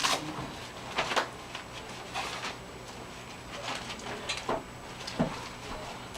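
Scattered light knocks, clicks and rustles of people moving about in a room, a few seconds apart, over a faint steady hum.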